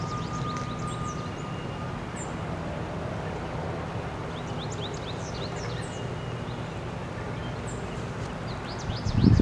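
Outdoor ambience: a steady low rumble with small birds chirping repeatedly in the background, and a short low thump near the end.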